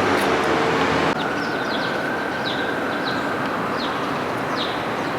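Loud steady vehicle noise, changing abruptly about a second in, with a small bird chirping repeatedly in short, high, falling notes.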